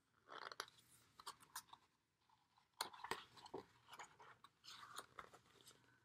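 Faint crackling and clicking of a picture book's stiff paper pages being handled and turned, in a few short clusters.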